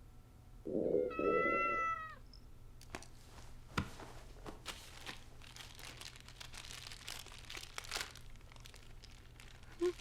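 A cat meows once, a call lasting about a second and a half that falls slightly at the end. Soft rustling and light clicks follow.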